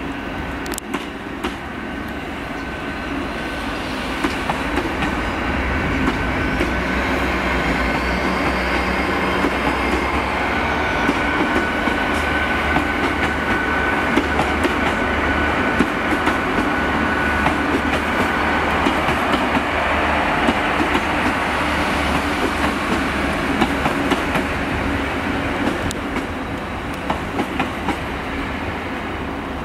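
GWR Class 800 Intercity Express Train running past: a steady rumble and hum with a thin whine and scattered wheel clicks over the rail joints. It grows louder over the first few seconds as the carriages go by and eases off near the end as the rear cab passes.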